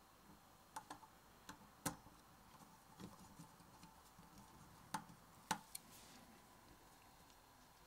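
Small metal screwdriver turning a screw in the microphone's metal top plate: sparse, sharp little clicks and ticks at irregular intervals, the loudest about two seconds in and two more near five and a half seconds.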